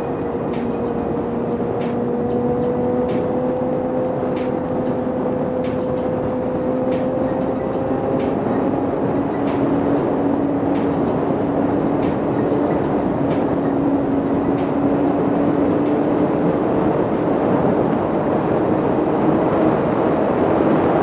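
Sport motorcycle engine running at a steady highway cruise, its note rising slowly as the bike gradually gains speed. It is mixed with a dense rush of wind and road noise.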